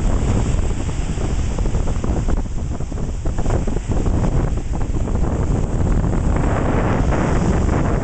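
Ocean surf breaking at the shoreline and its foam washing over the shallows, with strong wind buffeting the microphone in a heavy low rumble.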